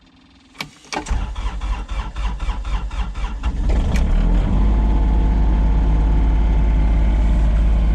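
Komatsu PC16 mini excavator's diesel engine cold-started after glow-plug preheating: a couple of clicks, then the starter cranks in a quick rhythm for about three seconds before the engine catches about four seconds in and settles into a steady idle. It runs with a little more vibration than usual, which the owner thinks might be water in the fuel filter.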